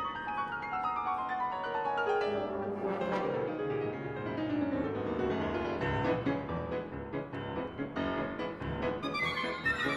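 Solo piano in a live concerto for piano and wind band, playing a fast falling run of notes over the first few seconds, then quick busy passagework.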